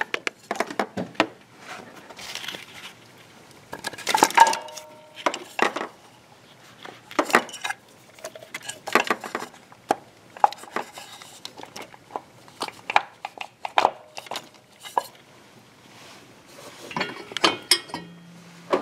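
Irregular metallic clicks and clunks of a GM HEI distributor being wiggled and turned by hand as it is lowered into a small-block Chevy, trying to engage the oil pump drive. The loudest is a single clank about four seconds in that rings briefly.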